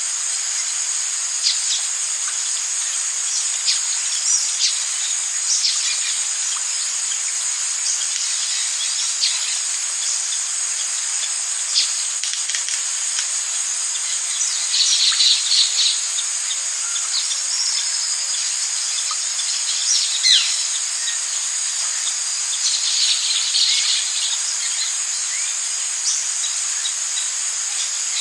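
Steady high insect chorus of crickets and cicada-like drones, with scattered short bird chirps and two brief bursts of chattering calls, about fifteen and twenty-three seconds in.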